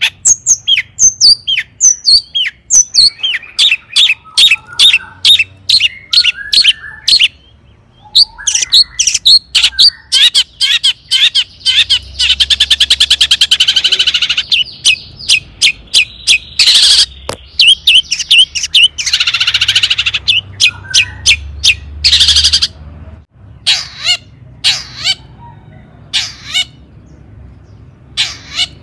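Long-tailed shrike (cendet) singing loudly: a rapid run of sharp, high calls, a fast trill about halfway through, and scratchy bursts a little later, thinning to spaced calls near the end.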